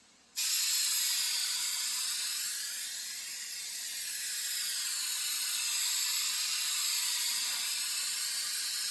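Aerosol can of truck bed coating spraying in one long continuous hiss, starting about half a second in and easing a little in the middle.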